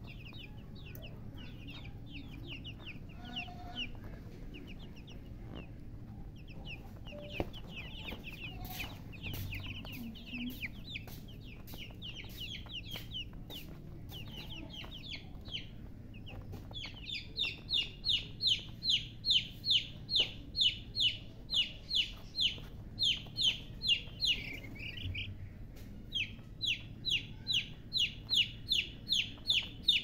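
A flock of baby chickens peeping, with many short high calls overlapping. From a little past halfway, one chick close by peeps loudly and evenly, about two or three times a second, stops briefly, then starts again near the end.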